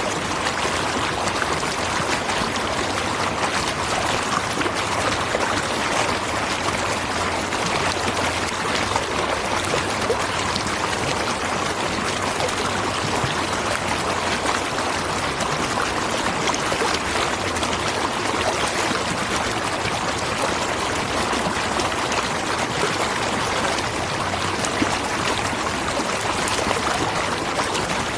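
Natural waterfall: a steady, dense rush of falling and splashing water, unchanging throughout.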